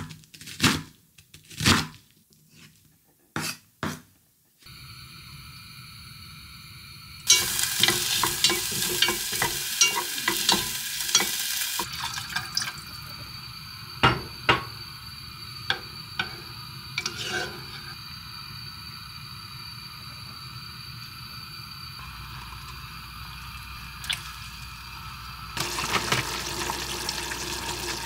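A knife chopping onion on a wooden cutting board, a quick run of sharp cuts. Then onion sizzling in a saucepan, stirred with a wooden spoon that clicks against the pan now and then; the sizzle is loudest when it starts, settles, and grows louder again near the end.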